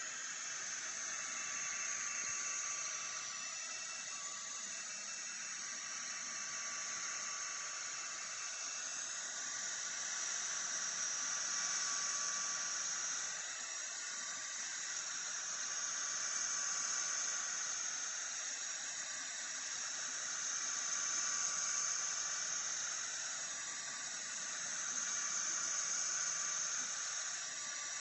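Sculpfun S30 Pro diode laser engraver at work on plywood: a steady hiss of rushing air from the air assist and cooling fan, with a faint whine from the stepper motors. The sound swells and eases every few seconds as the head moves across the board.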